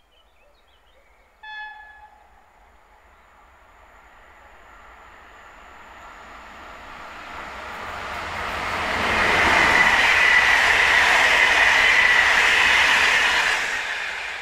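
An express passenger train hauled by an electric locomotive passes at speed. A short train horn blast sounds about a second and a half in, then the rush of wheels on rail and air builds steadily, peaks and fades near the end.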